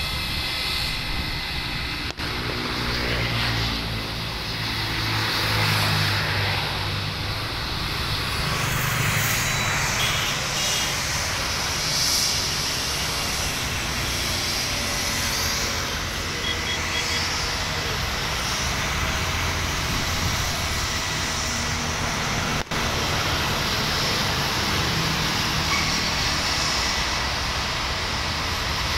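Jet engines of an IndiGo Airbus A320-family airliner running on the runway: a loud, steady rumble and roar. The sound drops out abruptly twice, at edit cuts.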